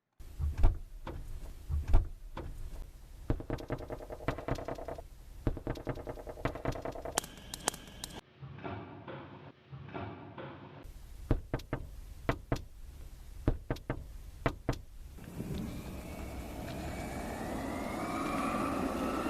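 A string of separate foley sound effects cut one after another: sharp clicks and knocks over a humming mechanical tone, then a run of spaced knocks, then from about three quarters of the way in a steady noise that swells and rises in pitch, like a vehicle passing.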